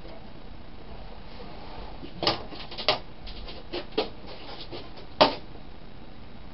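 Metal parts clinking and knocking: a handful of sharp clinks about two seconds in, with the loudest knock near the end, as a generator's removed sheet-metal side cover and its screws are handled and set down.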